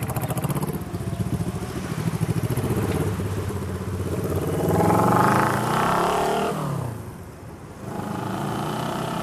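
Motorcycle engine running with a pulsing beat, then revving as the bike pulls away and passes close by: the engine note rises and then falls about five to six seconds in and fades about seven seconds in. A steady hum takes over near the end.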